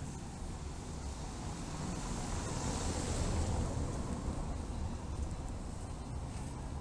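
Wind rumbling on the microphone, with a car passing on a cobbled street; the tyre noise swells to a peak about three seconds in and then fades.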